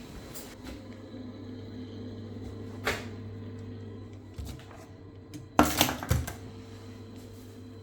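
Vaillant combi boiler running with a steady low hum, with a sharp clack about three seconds in and a quick cluster of knocks and rattles near six seconds from parts or tools being handled.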